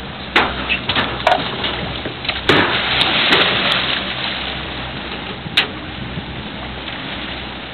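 Powerboat engine running steadily under the rush and splash of the churning wake, with several sharp knocks in the first few seconds and one more near the end.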